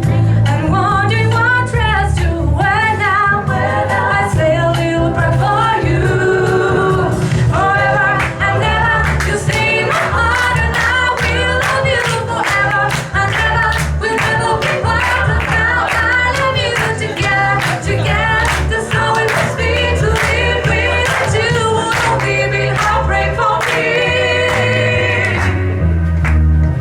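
Music with singing voices over a steady bass line and a regular beat.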